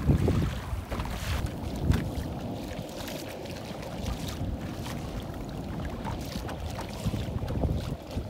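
Wind buffeting the microphone, gusting hardest in the first two seconds, over choppy sea water splashing around a kayak.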